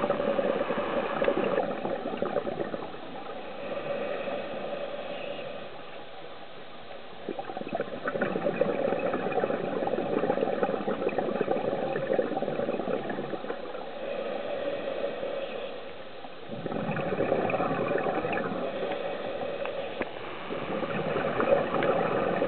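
Scuba diver's exhaled regulator bubbles, heard muffled through an underwater camera housing as gurgling rushes that swell and fade several times, a few seconds apart.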